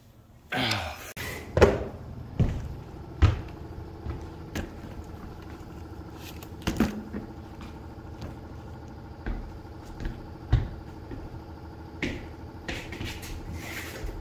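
Work noise from an RV roof being rebuilt: scattered sharp knocks and bumps on the plywood deck over a steady machine hum, with a short rush of noise about half a second in and another near the end.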